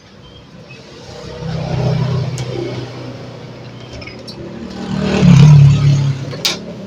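A motor vehicle's engine passing, swelling up about two seconds in and again, louder, at about five and a half seconds, then fading. A sharp tap near the end.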